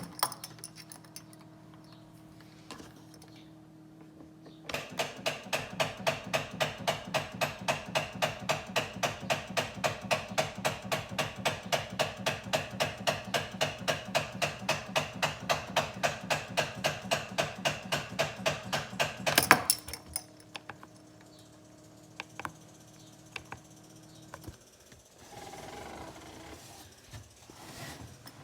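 An engine cranking over without catching: an even, rapid clatter of about five beats a second runs for about fifteen seconds, then cuts off with a sharp bang. A low steady hum comes before and after.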